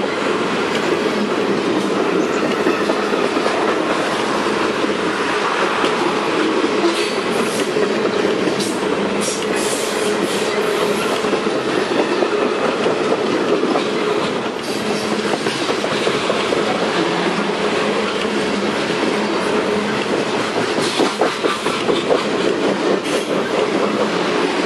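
Freight train of insulated boxcars rolling past close by: a steady rumble and rush of steel wheels on rail with a clickety-clack over rail joints. Sharp metallic clatter comes in clusters about a third of the way in and again near the end.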